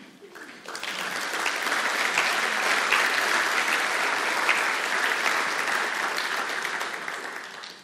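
Audience applauding: many people clapping, starting about a second in, holding steady, then dying away near the end.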